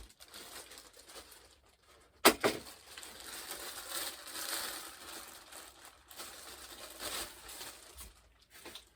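Packaging being handled as model parts are unpacked: plastic and cardboard rustling and crinkling, with one sharp knock a little over two seconds in.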